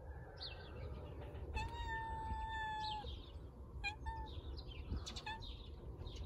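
A cat meowing: one long, level meow lasting about a second and a half, then a few short meows.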